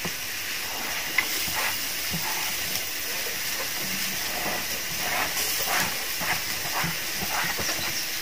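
Chopped onions sizzling steadily in hot oil in a frying pan as sliced green chillies, ginger and curry leaves are tipped in, with a few faint clicks from a steel spatula.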